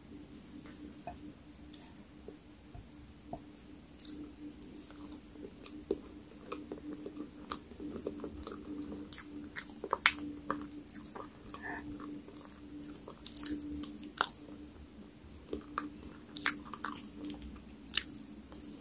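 Chewing of soft layered chocolate ganache cake: wet mouth sounds with many scattered sharp clicks, busier from a few seconds in, and a metal fork cutting into the cake.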